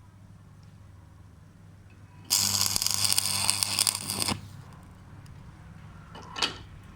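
Electric arc welding on a steel suspension arm: a short weld run of about two seconds, a dense crackling sizzle that starts and stops abruptly, over a steady low hum. A brief scrape follows near the end.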